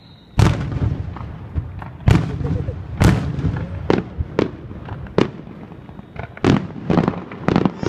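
Aerial fireworks bursting: a string of sharp bangs, one or two a second, the loudest ones in the first few seconds.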